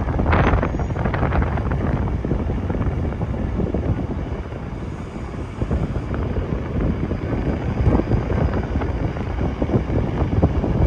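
Wind buffeting the microphone, a gusty low rumble that rises and falls throughout, with a brief stronger gust near the start.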